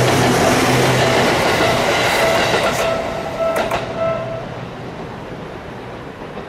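Seibu Ikebukuro Line electric train running over a level crossing: steady rolling noise with a few sharp wheel clicks over the rail joints about three and a half seconds in, then fading as the train moves away.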